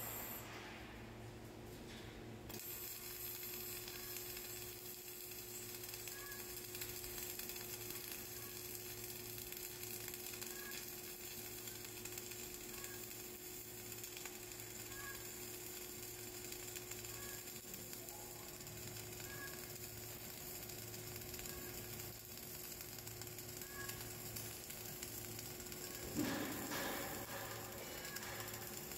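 Flux-cored arc welding on a vertical butt joint: the arc strikes about two and a half seconds in, then runs with a steady crackling hiss. There is a brief louder burst near the end.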